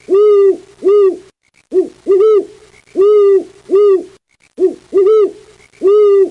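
Owl hooting: a steady series of short hoots, each a quick rise and fall in pitch, about one a second, with now and then a quick double hoot.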